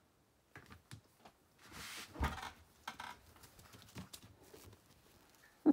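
A small dog's claws clicking and pattering on a tile floor in scattered faint taps, with a brief rustle and thump about two seconds in and a short, sharp, loud sound near the end.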